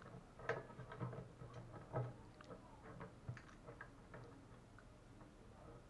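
Faint, irregular clicks and taps of hard plastic being handled as a cut plastic piece is pressed and fitted into the mouth of a plastic water jug, growing sparser near the end.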